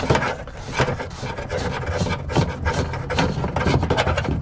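Close rubbing and scraping handling noises with many quick knocks and clicks.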